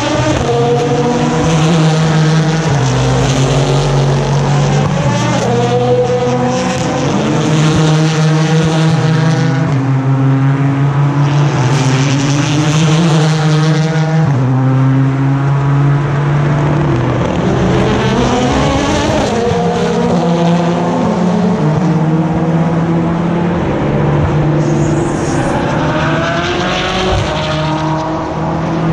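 Endurance race cars (prototypes and GT cars) one after another through a slow corner: engines dropping through the gears under braking, then rising through upshifts as they accelerate away, with the sounds of several cars overlapping.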